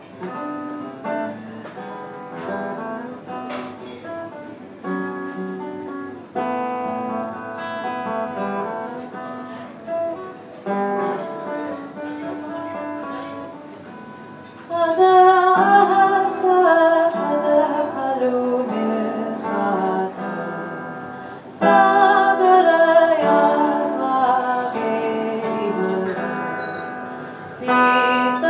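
Acoustic guitar played with picked notes, alone at first. About halfway through, a woman's voice comes in louder over it, singing long, wavering phrases that slide downward, and she starts fresh phrases twice more.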